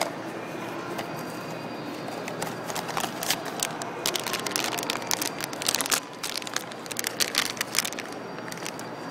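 A Vinylmation blind box being opened by hand. The packaging crinkles and crackles in a dense run of small clicks for several seconds, starting a couple of seconds in and easing off near the end.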